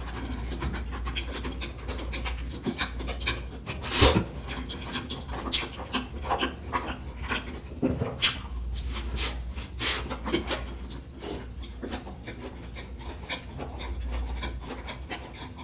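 Close-miked chewing and mouth sounds of someone eating: irregular wet clicks and smacks, with a louder one about 4 s in, over a steady low hum.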